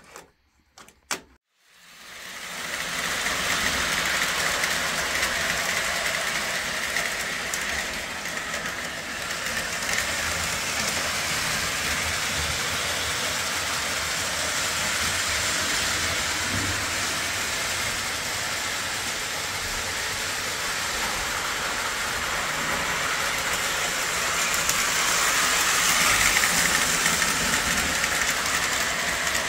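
Lionel O-27 model trains running on three-rail track: a steady whir and rattle of motors and wheels on the rails. It starts after a second or two of near silence and grows a little louder about 25 seconds in.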